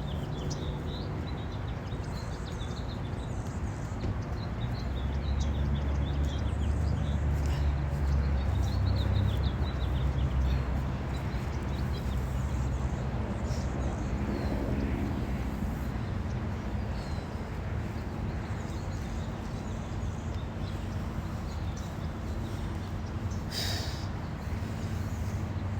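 Small birds chirping faintly over a steady low rumble, which swells for several seconds near the start.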